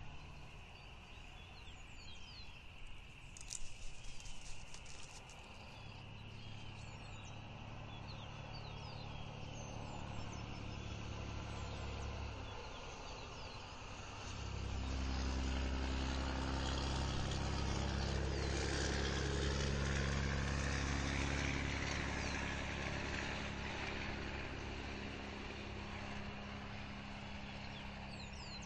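A passing motor vehicle's engine: a low hum builds over several seconds, is loudest about two-thirds of the way through, then fades. Small birds chirp before it comes in, and there is a brief clatter of taps a few seconds in.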